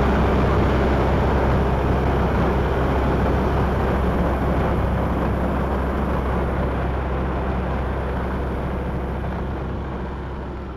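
Combine harvester running steadily with its engine and unloading auger working, a dense mechanical rumble. It fades out over the last couple of seconds.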